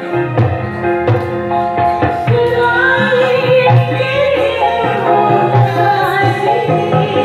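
Loudly amplified backing music with a drum beat, and a woman singing along karaoke-style into a handheld microphone from a few seconds in.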